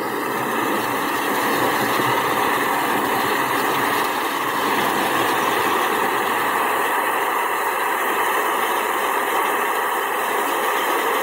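Heavy diesel forestry machinery running steadily under load, a loud, dense, even engine and mechanical noise.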